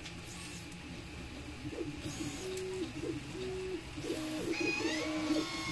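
Countertop vacuum sealer's pump running, drawing the air out of a plastic bag on a light setting, just enough to hold the pieces inside. A low steady hum wavers throughout, and a higher whine comes in about three-quarters of the way through and holds.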